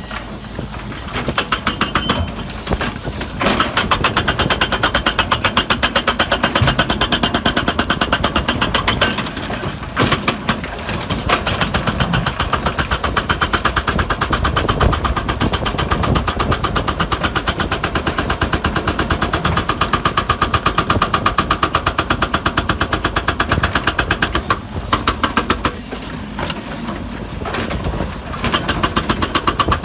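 Hydraulic breaker on a Hidromek crawler excavator hammering rock in long runs of rapid, evenly spaced blows, over the excavator's engine. The hammering stops briefly a few times, the longest pause lasting about three seconds near the end.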